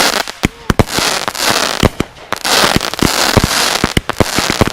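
Consumer firework cakes, Legend Matrix Power and Black Cat Blowout, firing together: a rapid, irregular run of sharp bangs as shots launch and break, with stretches of dense hiss between them.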